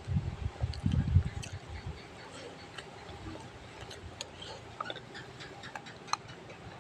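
Close-up eating sounds: a few soft low thumps in the first second and a half, then scattered small clicks, as of chewing and utensils against a bowl.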